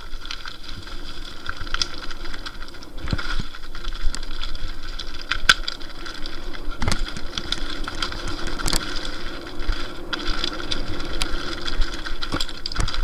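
Lapierre Zesty TR 4.9 full-suspension mountain bike descending a rocky trail at speed. The rear freehub buzzes steadily as it coasts, over chain and frame rattle and tyres on loose stones, with about four sharp knocks from hits on rocks.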